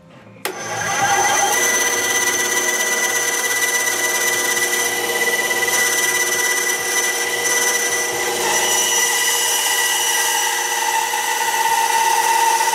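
Benchtop band saw running with a steady whine, starting suddenly about half a second in, its blade cutting through a small wooden block.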